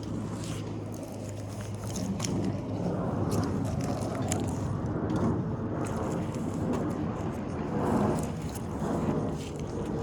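An engine running steadily, getting louder about two seconds in, with scattered sharp clicks and crackles over it.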